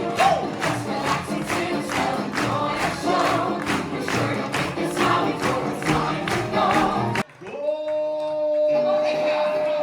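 Live band and a group of singers performing an upbeat song with a steady beat. About seven seconds in it cuts off abruptly to a single long held note.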